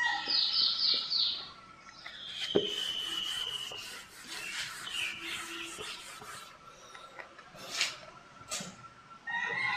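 Birds chirping and calling: a quick run of four falling chirps, then a long high whistle about two seconds in. A rooster starts to crow near the end, and a whiteboard is wiped with soft rubbing.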